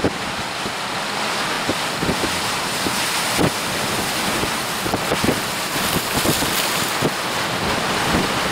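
Storm-force wind buffeting the microphone in rapid gusts over a steady rushing roar.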